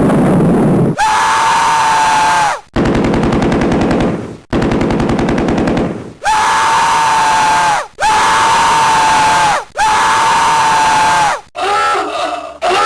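Loud, harsh distorted electronic noise in separate blasts: a rapid buzzing stutter of clicks, then three long blasts, each with a steady tone that sags in pitch as it cuts off. Near the end come beeping electronic tones.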